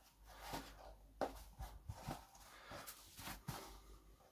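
Faint rubbing and a few soft clicks as hands handle, flex and squeeze a foam clog-style slipper.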